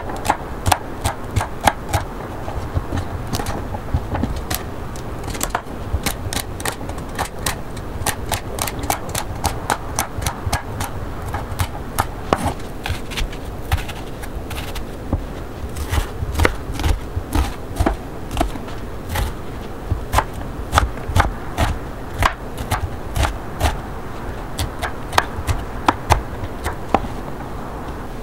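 Kitchen knife chopping celery and then dicing an onion on a wooden cutting board: repeated sharp knocks of the blade striking the board, several a second, with short pauses between runs of cuts.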